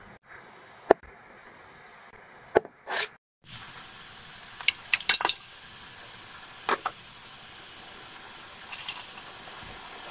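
Scattered light clicks and wet squishing sounds of cake batter being worked in a bowl, with utensils now and then tapping the bowl.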